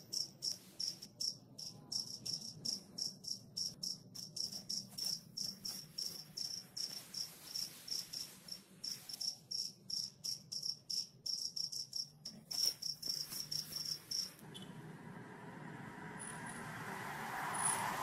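Cricket chirping steadily, a thin high pulse about three times a second. It stops about fourteen seconds in, and a steady rushing street noise like passing traffic takes over.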